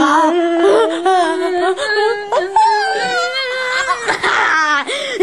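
A boy's voice making a long, wordless wail, held near one pitch with a wavering quaver for about four seconds before it drops off, then starting again near the end.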